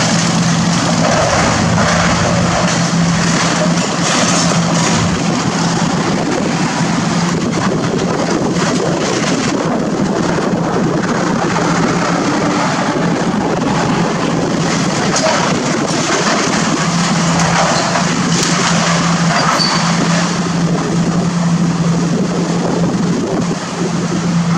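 Hydraulic excavator's diesel engine running steadily under load while its bucket tears into the building, with continual crunching, scraping and clattering of sheet metal and debris. The engine hum eases back in the middle and comes up strongly again in the last third.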